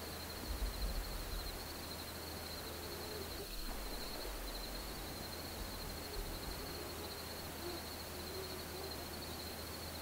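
A steady, high-pitched trill from field insects runs without a break over a low rumble. Faint, brief low tones come and go in between.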